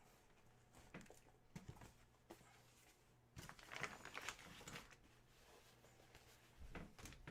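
Near silence, broken by a few faint rustles and light knocks in small clusters, the loudest a little before halfway through.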